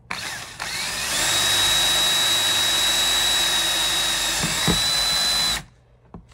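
Handheld power drill running a small bit through a motorcycle's plastic lower fairing to pre-drill a bolt hole. The motor spins up over the first second into a steady high whine, then stops abruptly near the end.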